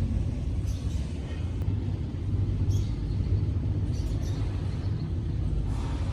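Steady low machine rumble, with a few faint brief scrapes on top.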